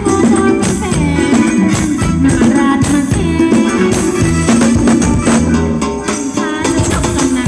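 Thai ramwong dance-band music played at a steady dance tempo, with rattling hand percussion keeping a quick, even beat over the melody.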